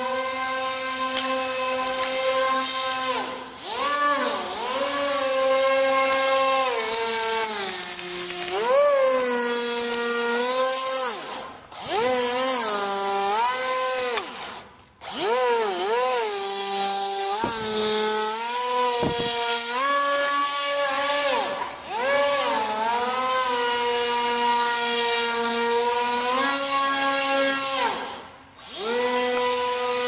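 Battery-powered electric motor and air propeller of a small RC airboat, whining steadily. Its pitch rises and falls as the throttle is worked, and it cuts out briefly three times.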